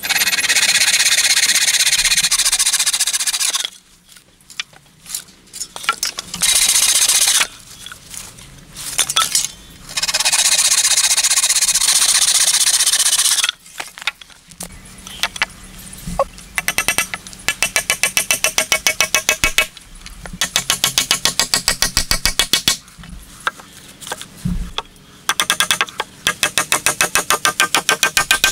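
Bow saw cutting through a green wooden pole in long rasping strokes, several spells of sawing. Then a blade works quickly at wood in a fast, even run of short scraping strokes.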